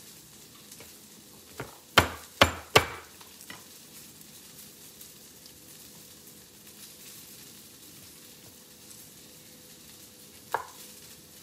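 Brussels sprouts frying in a pan with a steady sizzle. Three sharp knocks come in quick succession about two seconds in, and one more near the end.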